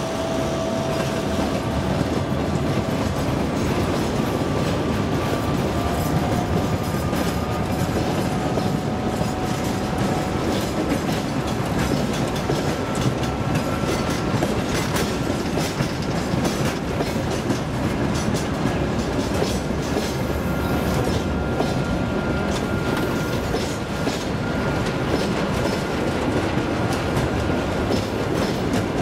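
Freight train of boxcars and open gondola wagons rolling past close by: a steady rumble of wheels with repeated clicks over the rail joints. Thin, faint wheel squeals ride over it, drifting slowly upward in pitch.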